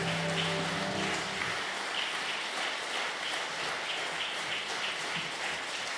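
The last held chord of music fades out about a second and a half in. Audience applause follows and settles into a steady beat of about three claps a second.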